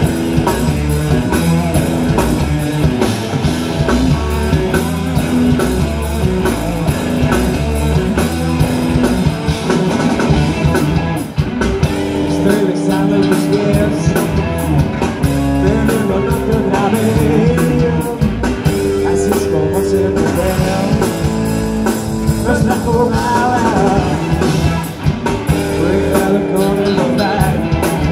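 Live rock band playing at full volume: electric guitars, bass and drum kit, with a male singer's vocals over them.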